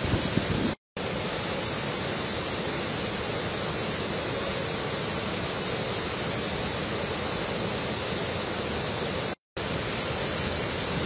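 Steady rushing of floodwater pouring over a rocky waterfall on the overflowing Ghataprabha river. It cuts to silence for a split second twice, about a second in and near the end.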